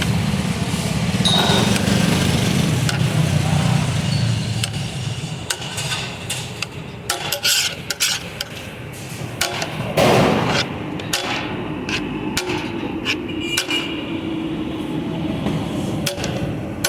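Scattered sharp knocks and clatter, one louder crash about ten seconds in, over a steady engine-like hum that fades out after the first few seconds.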